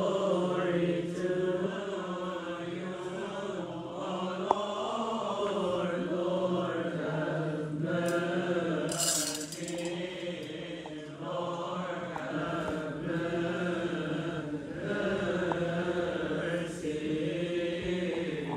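Coptic Orthodox liturgical chanting: a slow, drawn-out sung melody that carries on throughout. There is a single sharp click about four and a half seconds in and a brief hiss about halfway.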